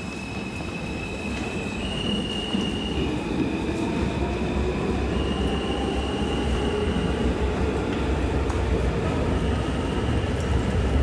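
New York City Subway Q train running, a low rumble that grows louder over the first few seconds, with high steady wheel squeals that shift pitch every second or two.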